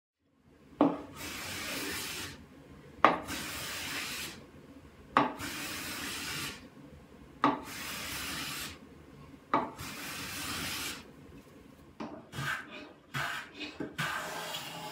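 Hand plane taking long strokes across a solid mahogany case top: five strokes about two seconds apart, each a sharp catch followed by about a second of shaving sound. These give way to several shorter, quicker strokes near the end.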